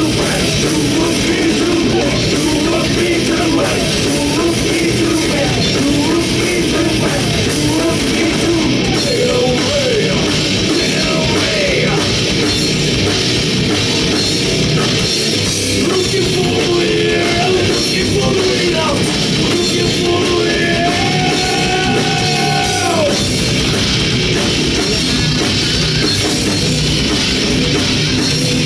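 Heavy metal band playing live, loud and dense with drums and no break.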